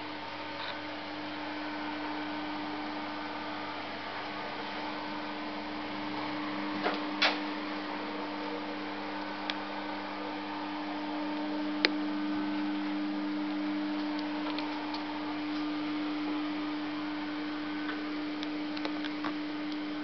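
Steady electrical hum with a constant low tone, in a small tiled room, broken by a couple of brief clicks.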